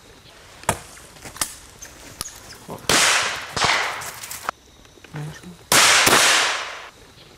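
Shotguns firing on a pheasant drive: two pairs of loud close shots, about three and six seconds in, each trailing off in a long echo. Fainter sharp cracks from distant guns come in between.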